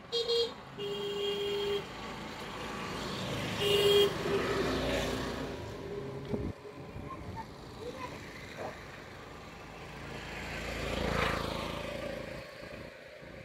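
Road traffic: a vehicle horn toots three times in the first four seconds (a short blast, a longer one, then another), while vehicles pass, one growing louder and fading away about eleven seconds in.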